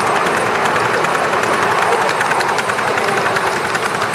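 A 7¼-inch gauge Black 5 miniature steam locomotive running with its train, heard from on board: a steady rush of running noise with many faint, rapid clicks.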